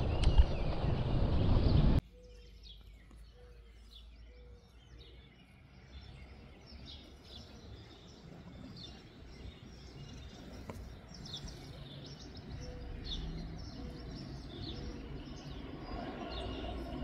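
Wind noise from a moving bicycle for about two seconds. It cuts off suddenly to a quiet rural background with birds chirping again and again, and two short runs of low, evenly spaced notes.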